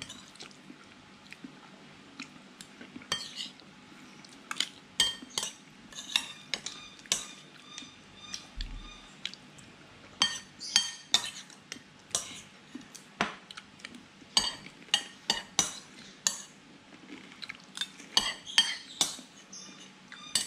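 Metal spoon clinking and scraping against a ceramic bowl in short, irregular strokes while avocado and egg are scooped up, with quiet gaps between the clusters of strokes.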